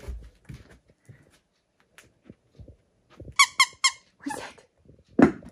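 Squeaky dog toy squeezed three times in quick succession, high and evenly spaced, then a longer, rougher squeak. A brief louder sound comes near the end.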